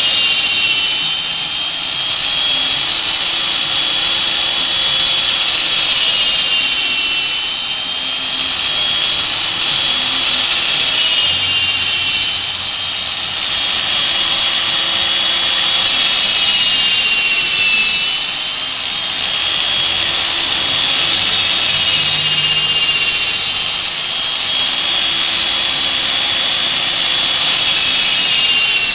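Electric hand drill clamped in a homemade wood-mortising jig, running with a high steady whine while boring into a wooden block. Five or six times the pitch sags and recovers as the bit is pressed down into the wood and cuts.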